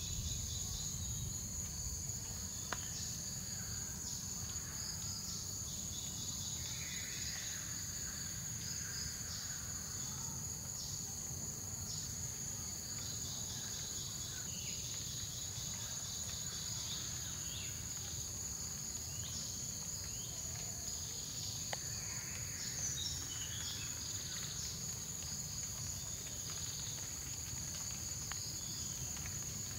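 Tropical forest ambience: a steady, high-pitched insect drone throughout, with scattered short falling chirps over a low steady rumble.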